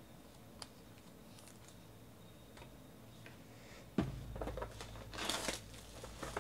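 Quiet room tone, then about four seconds in a sudden bump followed by clear plastic shrink wrap being torn off a trading-card box and crinkled in the hands.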